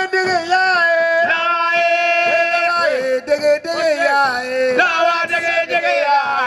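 Voices singing a chant-like song with long held, wavering notes and sliding pitches.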